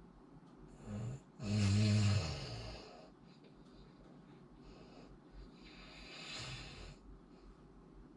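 A person snoring: a short snort about a second in, then one loud snore with a low buzzing pitch, and later a quieter, airy breath.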